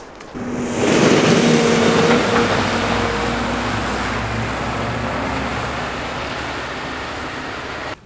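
Gritter lorry driving past on a slushy road: a steady diesel engine hum under loud tyre noise, swelling in during the first second, then slowly fading until it cuts off abruptly at the end.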